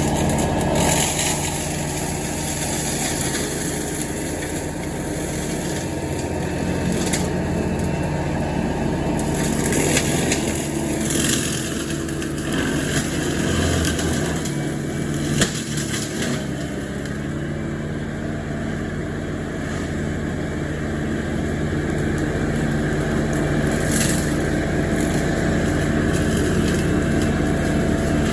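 Farm tractor engine running steadily, with occasional rattles and a sharp knock around the middle.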